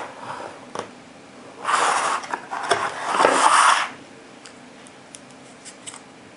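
Plastic cartridge tray scraping and rustling as it is slid out of a cardboard ammunition box, in two stretches, then a few light clicks of brass .300 WSM rifle cartridges against the tray.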